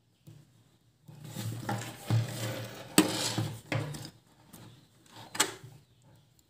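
Handling noise from a plastic smartphone clamp mount as a phone is fitted into it: rubbing and scraping for a few seconds, with a sharp click about three seconds in and another near the end.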